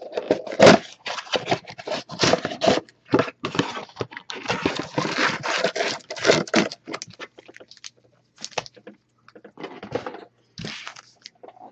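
A cardboard trading-card box being opened by hand: the cardboard is torn and its flaps pulled back, and the foil-wrapped card packs inside are slid out and handled, giving rapid crackling and scraping. It is busiest for the first seven seconds or so, then turns to scattered, sparser rustles and taps.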